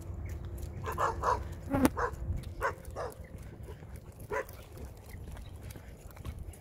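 Dogs barking: a run of short barks in the first three seconds and one more a little past four seconds, with a sharp click among them near two seconds in.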